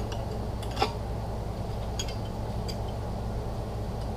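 A few light metal clicks from transfer case parts being handled, the clearest a little under a second in, over a steady low background hum.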